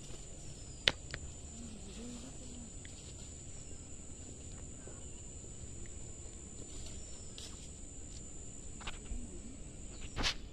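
Rustling of leaves and undergrowth as a person moves and picks vegetables among maize stalks. There is one sharp snap about a second in and a few more near the end, over a steady high-pitched whine.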